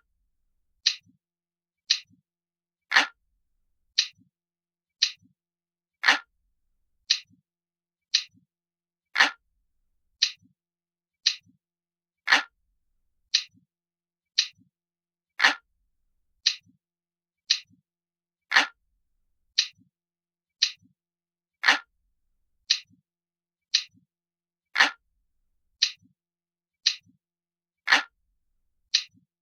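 Analog clock ticking, about one tick a second, with every third tick louder and fuller.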